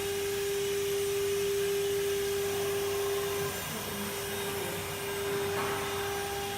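ATC CNC router's spindle running at speed with a steady high whine over a mechanical hiss; the level drops slightly about halfway in.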